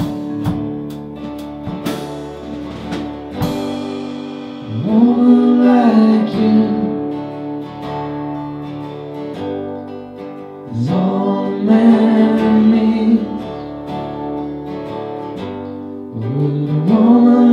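Live acoustic band music: strummed acoustic guitar, with sharp strums in the first few seconds, under three long sung vocal phrases about six seconds apart.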